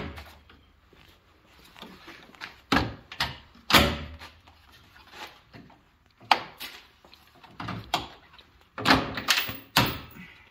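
Snap clips popping loose as a 2021-up Ford Bronco's plastic grille is pulled free: a string of sharp plastic snaps and knocks in three clusters, about three seconds in, around six and a half seconds, and a louder group near the end.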